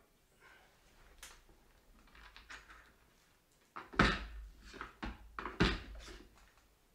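Faint clicks and scrapes of a screwdriver working on a metal ceiling light bracket, then loud knocks and thuds of handling about four seconds in and again about five and a half seconds in.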